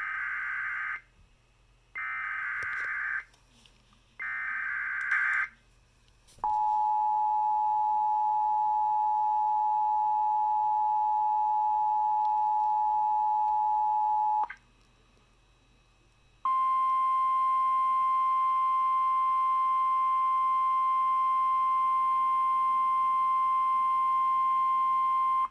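Emergency Alert System tornado-warning signal: three short bursts of SAME header data, then the steady two-tone EAS attention signal for about eight seconds. After a two-second gap comes a single steady NOAA Weather Radio warning tone for about nine seconds.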